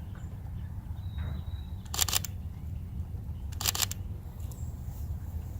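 Camera shutter firing in two short bursts of a few rapid frames each, about two seconds in and again near four seconds.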